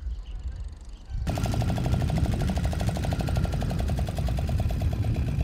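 Small long-tail boat engine running with a rapid, even beat. It starts abruptly about a second in, after a faint low rumble.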